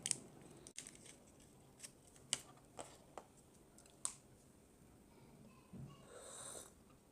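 Faint sharp clicks and light crinkling as a medicine blister pack is handled and tablets are pressed out, about five clicks in the first four seconds. A short, soft hiss follows about six seconds in.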